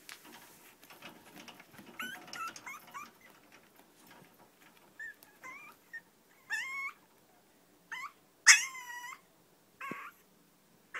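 Long-coat Chihuahua puppy crying in a string of short, high-pitched whimpers and yips, each bending in pitch, the loudest about eight and a half seconds in.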